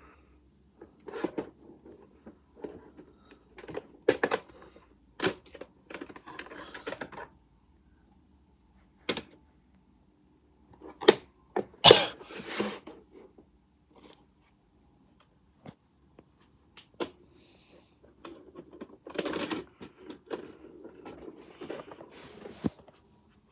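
Plastic VHS tape and case being handled: a string of separate clicks, knocks and rustles, the loudest clacks coming about halfway through.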